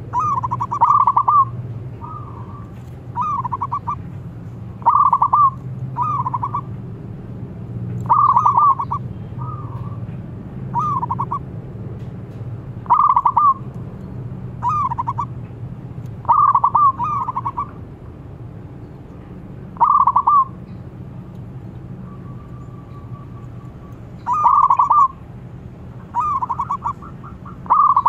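Zebra doves (perkutut) cooing: loud, rapid stuttering trilled coos repeated about every two seconds. Fainter coos from other doves answer in between.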